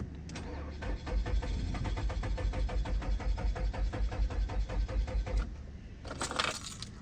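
The 2017 Nissan Altima's 2.5-litre four-cylinder engine cranks on the starter in an even, pulsing rhythm for about five seconds without catching, then stops. This is a crank-no-start fault, which the owner suspects could be a cam sensor or a fuel rail or injector problem. A short hissing sound follows about a second after the cranking stops.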